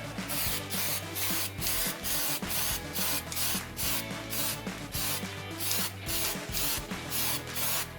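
Background music with a steady, regular beat.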